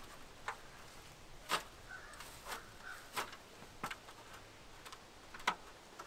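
Sharp, irregular clicks and knocks from a stepladder being handled and set down, about six in all, the loudest about a second and a half in and again near the end.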